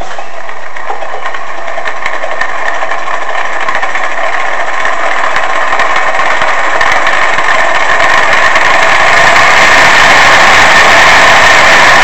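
Homemade compressed-air model radial aircraft engine (aluminium cylinders, brass pistons) running with its wooden propeller spinning: a steady mechanical hum with hissing air, growing louder over the first several seconds as it picks up speed, then holding steady.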